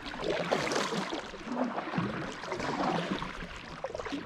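Water splashing and sloshing around a kayak, irregular and uneven.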